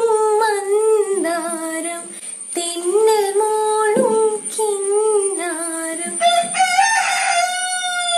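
A girl singing a melody in a high voice, in short phrases, with one long held note near the end.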